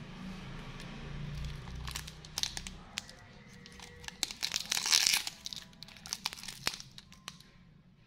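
Plastic candy wrapper crinkled and torn open by hand, with a run of sharp crackles that peaks about five seconds in.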